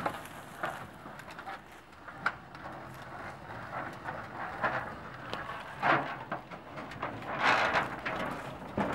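An appliance dolly carrying a heavy, blanket-wrapped appliance being rolled up a metal truck loading ramp: wheels rumbling on the ramp with scattered knocks and clanks, and footsteps on the ramp, louder twice in the second half.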